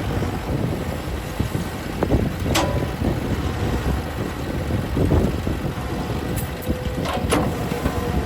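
A heavy machine's engine running steadily, with wind on the microphone. A sharp knock comes about two and a half seconds in, and two more come close together near the end.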